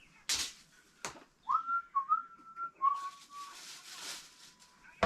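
A person whistling a few short notes of a wavering tune, with a couple of brief handling clicks or rustles just before it.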